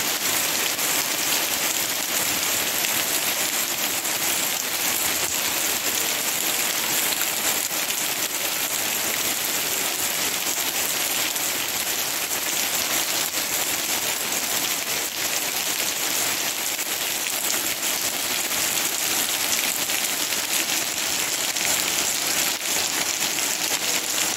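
Steady rain shower falling on the leaves of a mango tree, an even, unbroken hiss.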